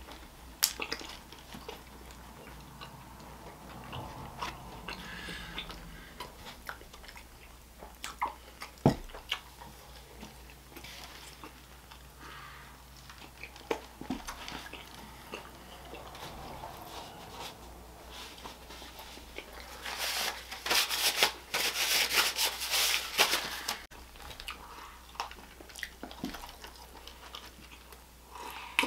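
Close-miked biting and chewing of White Castle French fries, with scattered small clicks and mouth sounds. About two-thirds of the way through, a louder crackly noise lasts about three seconds.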